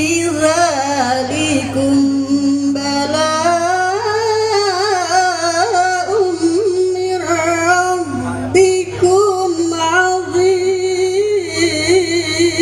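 A woman reciting the Qur'an in tilawah style, drawing a long ornamented melodic phrase with wavering turns, with short breaks about two-thirds of the way through, amplified through stage loudspeakers.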